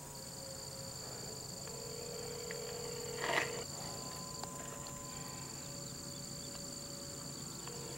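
Insects trilling steadily in high, unbroken tones. A short, sharp noise a little over three seconds in stands out above them.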